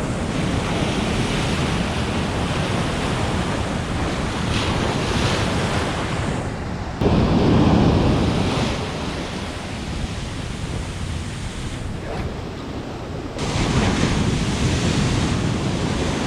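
Ocean surf breaking and washing up a sand beach, with wind buffeting the microphone. The level jumps abruptly about seven seconds in and again near thirteen seconds.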